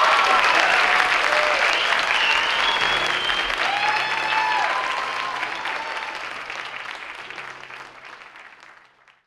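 Theatre audience applauding and cheering, with a few shouts and whoops over the clapping. The applause dies away over the last few seconds and stops just before the end.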